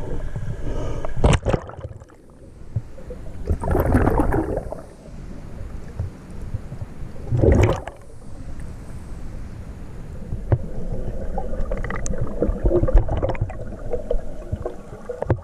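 River current rushing and gurgling around a waterproof camera housing held underwater in a fast-flowing river running high, with louder splashing surges about one, four and seven and a half seconds in.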